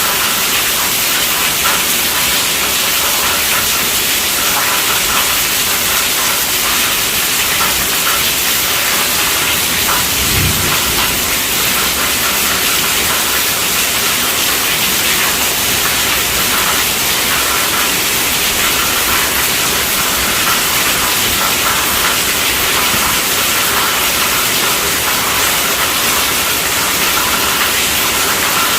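Steady rainfall, a constant dense hiss, with one brief low thump about ten seconds in.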